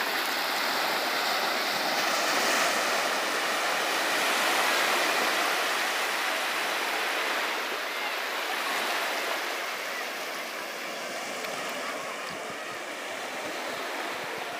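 Small sea waves washing onto a sandy beach at the water's edge: a steady surf hiss, a little louder in the first half.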